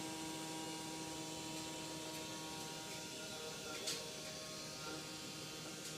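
Vacuum cleaner motor running steadily, a constant hum with several steady tones.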